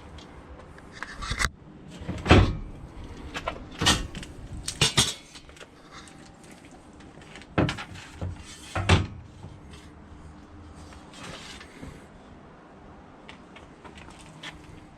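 A hinged aluminium wheel stand being handled and folded, its metal parts knocking and clanking several times over the first nine seconds or so, followed by only light handling noise.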